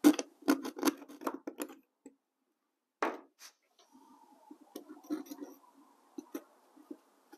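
Hand tool scraping the edge of a cut-out in 1/8-inch masonite hardboard in a quick run of short strokes, enlarging the hole. Later come a few soft knocks and rubs as a small control panel is pushed into the opening, with a sharp click near the end.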